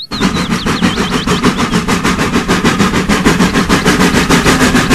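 Steam tank locomotive working under way, its exhaust chuffing in a fast, even rhythm of several beats a second.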